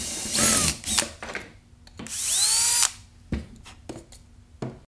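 Cordless drill boring a 5/32-inch hole through a wooden stock in two short runs, the motor whining up and winding down each time, drilling from both sides so the wood does not blow out. A few light knocks follow near the end.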